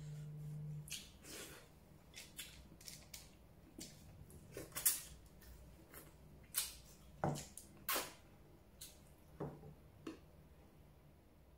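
Close-up eating sounds: a string of sharp, wet mouth smacks while chewing rice eaten by hand, the loudest about five seconds in. Softer rustles come early on as fingers scrape the aluminium foil lining the plate.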